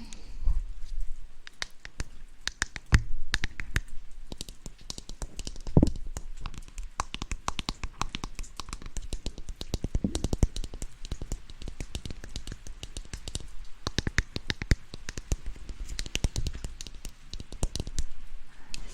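Close-miked ASMR tapping and scratching: a dense, irregular run of quick clicks and scrapes, with a few soft thumps about 3, 6 and 10 seconds in, meant to soothe an itch in the roleplay.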